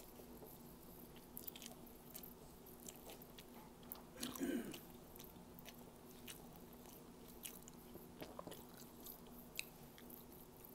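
Faint close-up chewing of fried squid and rice, with many small wet mouth clicks and a louder, short mouth sound about four seconds in.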